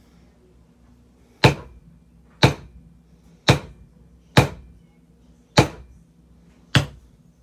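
A maul striking a leather stamping tool six times, about once a second, pressing a border pattern into a leather fender bib laid on a granite slab. Each blow is a sharp, crisp knock.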